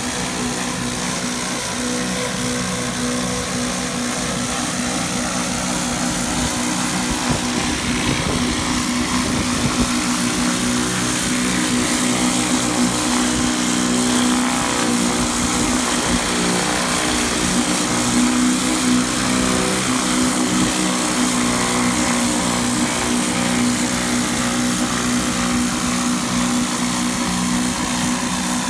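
Pressure washer's engine running steadily under load, with the hiss of high-pressure water spraying onto roof tiles.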